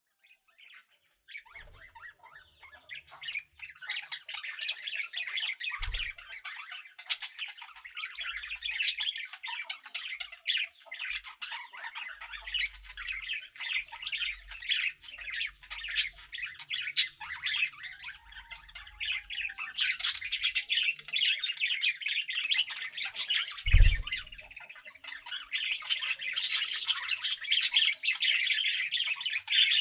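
A group of pet budgerigars chattering and chirping continuously in quick, overlapping warbles. A couple of soft thumps stand out, one about 6 seconds in and a louder one near 24 seconds.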